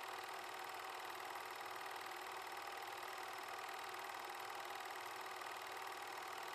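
8mm film projector running: a steady, fast mechanical clatter of the film-advance mechanism with a constant whir.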